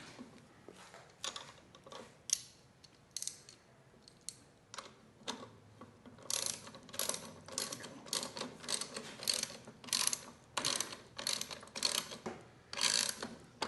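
Ratchet wrench clicking as a bolt is tightened: a few scattered clicks at first, then from about six seconds in a steady run of ratcheting strokes, about three a second.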